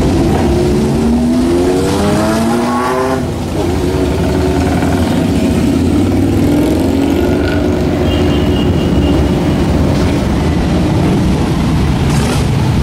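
Motorcycles riding past over a steady traffic rumble. One engine revs up in a rising whine from about one to three seconds in and then drops off, and a second, smaller rev follows a few seconds later.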